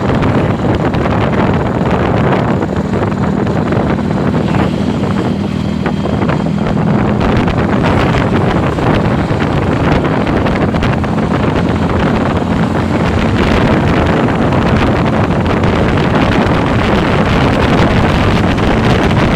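Heavy vehicle engine running with road noise, a steady low hum under a dense rush, and wind buffeting the microphone.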